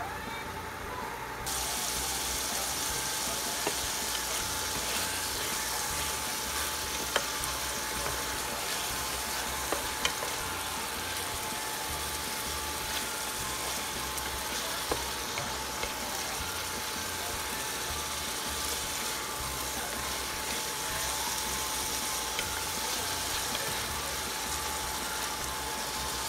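Vegan meat chunks in tomato and soy sauce sizzling and simmering in a square Copper Chef pan: a steady hiss with scattered small pops that turns louder and brighter about a second and a half in, as the glass lid comes off.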